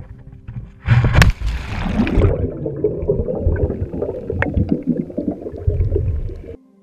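A splash about a second in as something plunges into the water, followed by muffled underwater bubbling and rumbling with scattered clicks, picked up by a camera under water. It cuts off suddenly near the end.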